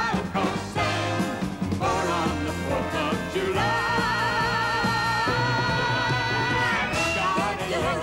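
A pop song: singing over a full instrumental backing, with a sung note held with vibrato for about three seconds in the middle.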